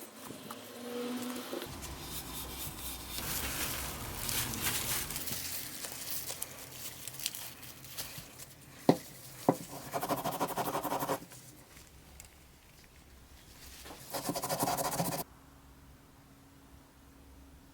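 Scraping and scratching from hand work on the blowtorch's parts, with two sharp clicks about nine seconds in and two short, louder bursts of harsher noise that start and stop abruptly.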